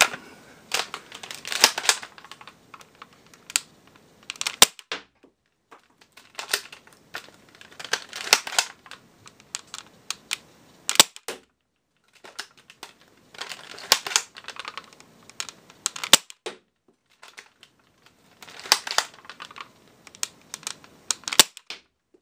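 Buzz Bee Air Warriors Rogue foam-dart blaster being primed and fired again and again: repeated clusters of sharp plastic clicks and clacks with short pops, about eight groups a couple of seconds apart.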